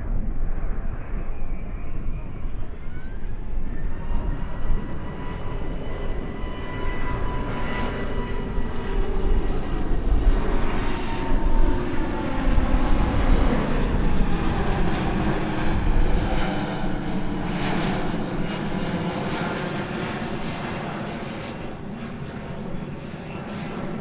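An airliner's jet engines passing by: a rumble with a high whine that falls slowly in pitch, fading toward the end. Wind buffets the microphone through the first part.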